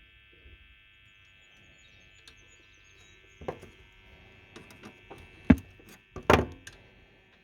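EKCO valve radio tuned between stations: a steady hum and whistling tones, broken by crackles and sharp clicks, the loudest about three and a half, five and a half and six and a half seconds in.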